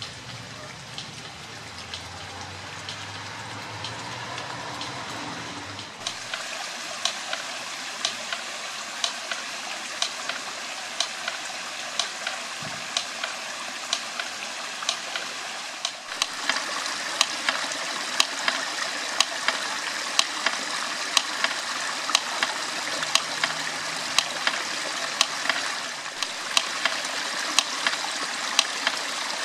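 Model water mill running: water splashing and rushing over the wheel while the mill's clapper clacks at a steady beat, a little more than once a second.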